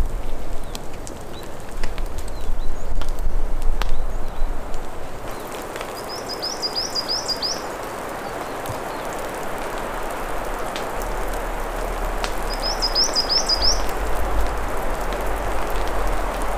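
Campfire crackling with sharp scattered pops for the first few seconds, then a steady hiss of rain falling through the forest. A small songbird twice sings a quick run of about half a dozen high chirps over the rain.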